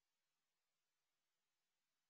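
Near silence: an empty audio track with only a faint electronic noise floor.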